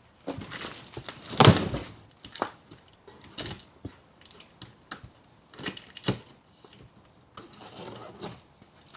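Cardboard shipping box being opened and its packaging handled: irregular tearing, crinkling and knocks of cardboard and plastic, loudest about a second and a half in.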